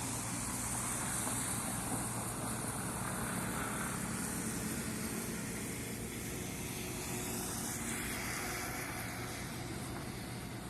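Steady low engine drone of ships in the harbour channel under an even hiss, easing slightly near the end.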